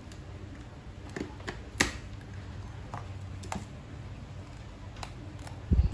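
Scattered light clicks and taps from test probes and a plastic cordless tool battery being handled, over a low steady hum, with a couple of louder knocks near the end.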